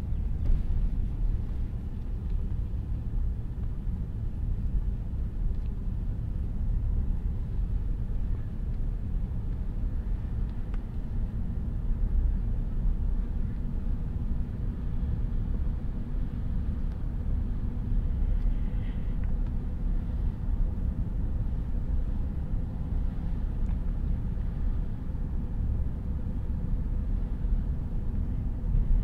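Car driving: a steady low rumble of tyres on the road and the running car.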